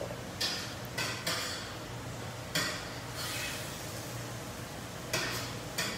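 A metal spoon clinking and scraping against a ceramic bowl and a stainless steel frying pan several times as mushrooms are spooned out, over frying burger patties sizzling in the pan.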